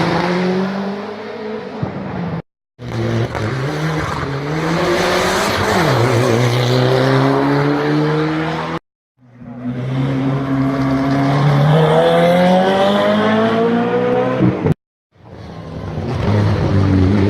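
Race car engines at full throttle, one car after another, each rising steadily in pitch as it accelerates, with a sudden drop at a gear change about six seconds in. The sound cuts out briefly three times between cars.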